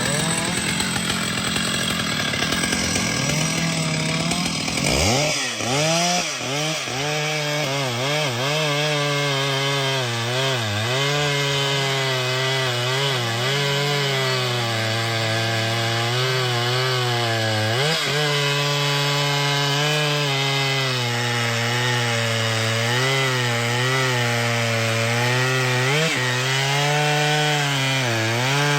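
Chainsaw cutting into wood. About five seconds in, the engine revs up to full speed. Its pitch then keeps dipping and recovering as the chain bogs down in the cut and frees up again.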